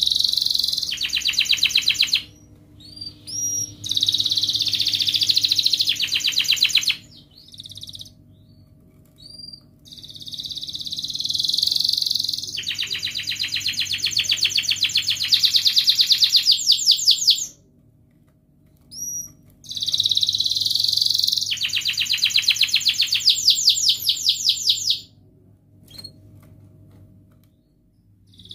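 Domestic canary singing in four phrases of a few seconds each: a buzzy, churring stretch that breaks into a fast, evenly repeated trill (roll), with short rising chirps between phrases.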